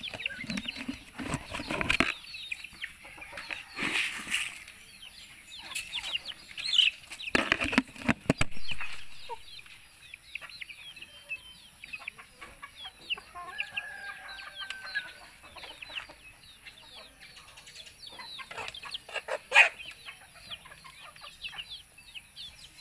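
Backyard chickens clucking and peeping, with many short high chirps throughout. There are several loud flurries of wing flapping; the loudest comes near the end.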